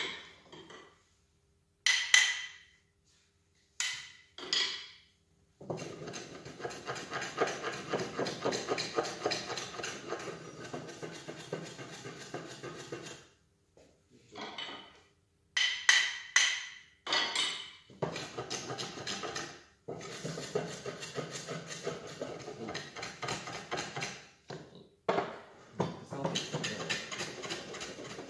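Hand woodworking on a board: several sharp ringing taps of a hammer, and between them long stretches of rapid, scratchy scraping as a hand tool is worked along the wood.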